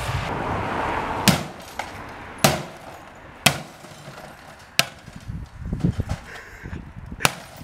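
A hammer striking an old CRT television set, five sharp hits at an uneven pace about a second or so apart, with a few lighter knocks in between.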